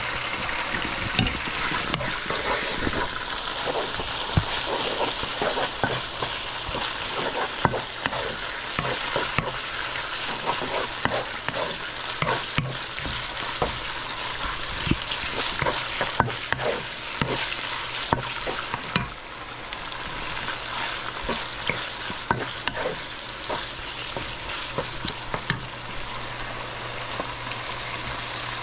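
Food sizzling in hot oil in a pan while a spatula stirs and scrapes it, with many short clicks and knocks of metal on the pan.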